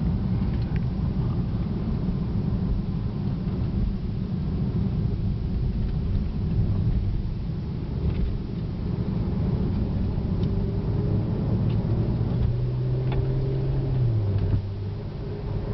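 2008 Porsche 911 Turbo's twin-turbo flat-six and the road heard from inside the closed cabin while driving in third gear: a steady low rumble. Near the end a steady engine hum steps down in pitch and the level dips briefly.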